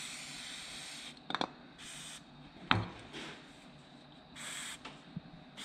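An aerosol can sprays onto the universal joint of an axle shaft clamped in a vise, in three hissing bursts: a long one at the start and two short ones. The U-joint is worn and has play, and is being freed for replacement. Two sharp metallic knocks fall between the bursts.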